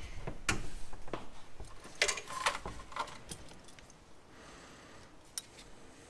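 Side cutters snipping plastic zip ties off a racing harness's arm-restraint loops, with handling of the harness's metal fittings: several sharp clicks over the first three seconds and one more near the end.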